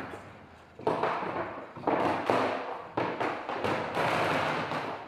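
Footsteps on old wooden floorboards, a dull thud roughly once a second.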